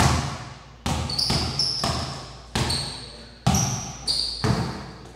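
A basketball dribbled hard on a tile floor, about eight uneven bounces in a bare, echoing room as the player works a step-back move. Several bounces are followed by a brief high squeak.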